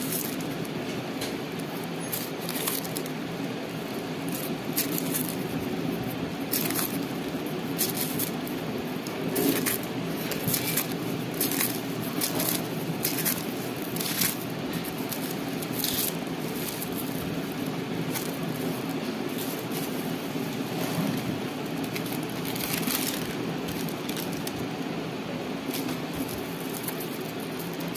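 Crinkling and rustling of a swollen lithium-ion pouch cell's metal-foil electrode layers and plastic separator film as they are peeled apart and unrolled by hand. The crackles are short and scattered, over a steady low hum.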